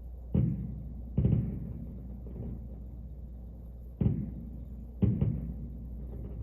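Fireworks shells bursting with deep booms: two in the first second or so, a pause, then three more, the last two close together, each fading off with a short rumble.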